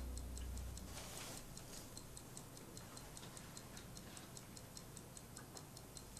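Clock ticking faintly and evenly, about four ticks a second, as background music fades out in the first second.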